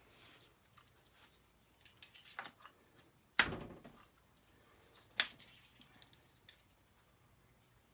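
Scattered clicks and knocks of tools and parts being handled on a workbench, with two sharp knocks about three and a half and five seconds in.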